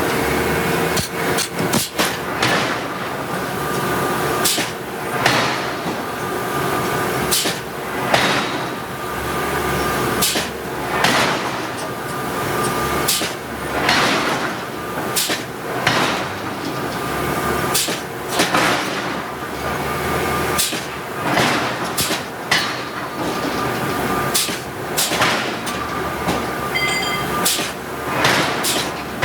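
Hydraulic forging hammer striking hot steel over and over, roughly one blow a second, over a steady machinery hum. A brief metallic ring sounds near the end.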